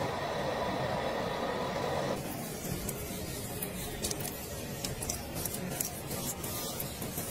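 A steady hiss for about the first two seconds, then fingertips rubbing a thick green facial mask off the skin, with soft scattered crackles and clicks.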